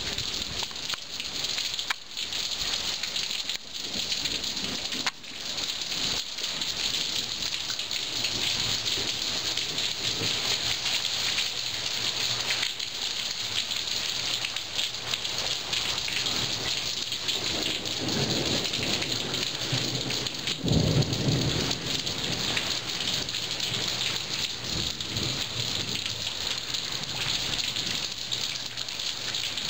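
Heavy monsoon rain pouring steadily onto a concrete patio and puddles, with a long roll of thunder that builds through the middle and is loudest about two-thirds of the way through before fading.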